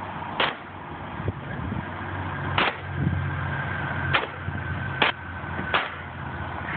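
Five sharp cracks of nailing at the roof edge, coming at uneven gaps of about one to two seconds, over a steady low hum.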